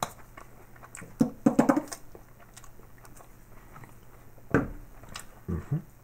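Plastic squeeze bottle of Heinz curry mango sauce being squeezed onto a pizzaburger, the sauce spluttering out in short squirts about a second in and again near the end. There is a sharp thump about four and a half seconds in.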